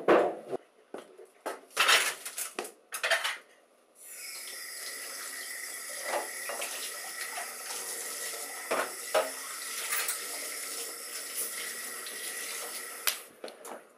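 Water running from a kitchen tap into a sink full of plates, a steady hiss with dishes clinking against each other as they are washed. Before the tap comes on about four seconds in, a few clatters of dishes being handled; the water stops shortly before the end.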